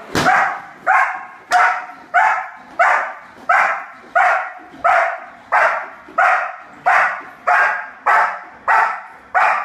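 German shepherd barking rhythmically and without pause, about three barks every two seconds, as it pulls on the line toward the helper in the bite sleeve: steady barking in drive during protection bitework.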